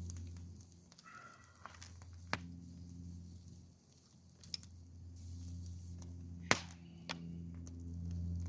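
A few scattered sharp clicks and knocks over a low steady hum, the loudest knock about two-thirds of the way in.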